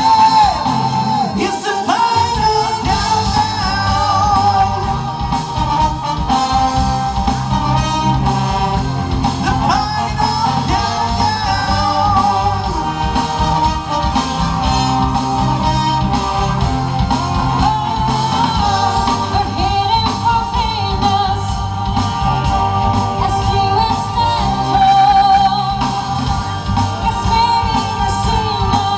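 Live rock-symphony performance: vocalists singing into microphones over a symphony orchestra, with cellos and double basses among the strings, playing continuously.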